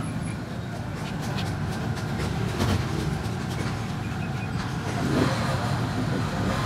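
Steady rumble of road traffic, with a few light clicks and taps as stiff battery plates are slotted into a steel drying rack.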